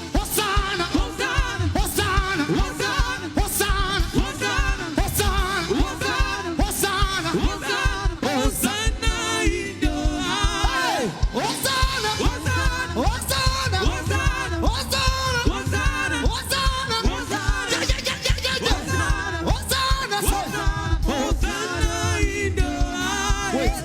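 Live gospel praise music: a voice singing over a band with a steady drum beat and heavy bass.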